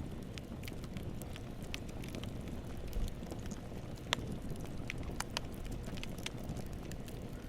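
Campfire burning: a steady low rumble of flames with scattered crackles and pops of burning wood, one sharper pop about four seconds in.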